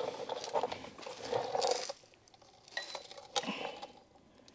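Light metal clinks and clicks of steel bolts being handled and fitted by hand at the centre of an LS engine's adapter flywheel. A busier run of small clinks comes first, then a few separate clicks.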